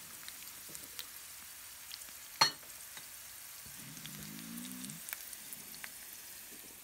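Garlic cloves frying in oil in a pan: a faint, steady sizzle with small crackles. A single sharp click about two and a half seconds in, and a short low hum around four seconds in.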